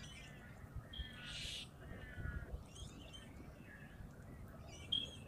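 A crow giving a single harsh caw about a second in, with short chirps and whistles of other birds around it.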